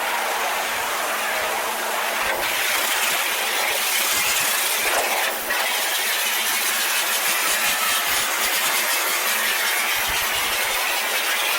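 Pressure washer spray blasting corrugated barn tin: a continuous loud hiss with a steady hum underneath. The spray dips briefly a little past the middle.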